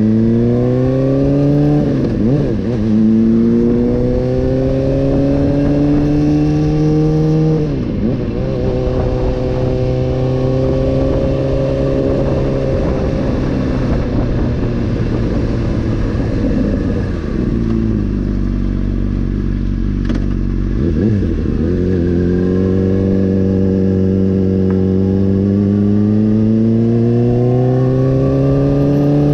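Honda CBR600RR's inline-four engine pulling up through the gears: the pitch climbs, drops at the upshifts about 2 and 8 seconds in, falls as the rider slows around the middle, then climbs steadily again near the end. Wind rush sits under the engine.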